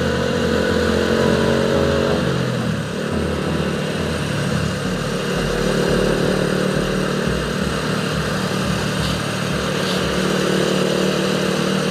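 Motorcycle engine running steadily at highway cruising speed under wind and road noise.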